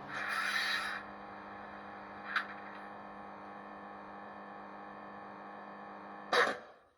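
Sound from the DCC sound decoder of an Accurascale class 89 model electric locomotive, played through its small onboard speaker: a steady electric locomotive hum made of many even tones. A hiss sits over it for the first second, a short click comes about two and a half seconds in, and a louder short burst near the end comes just before all sound cuts off.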